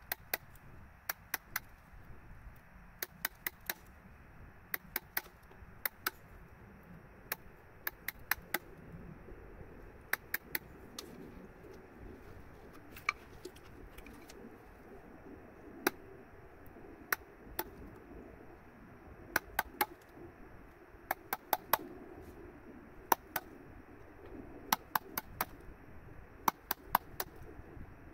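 Hammer striking a chisel into wood in short runs of two to four sharp taps, with brief pauses between runs.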